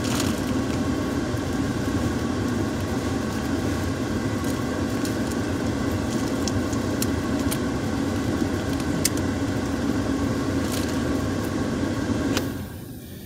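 Steady running noise of a car heard inside the cabin, with a few light clicks. It cuts off suddenly near the end, switched off so that speech can be heard over it.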